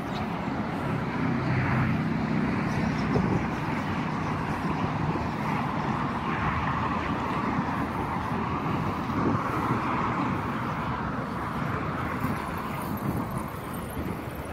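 Steady traffic noise from cars on a multi-lane highway, blending into one continuous sound.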